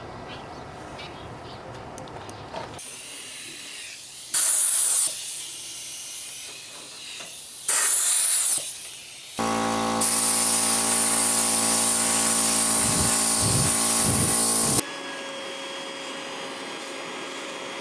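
Two short blasts of compressed air from an air nozzle, then a shop vacuum's motor running with a loud hiss of suction for about five seconds before it cuts off suddenly; a quieter steady hum follows.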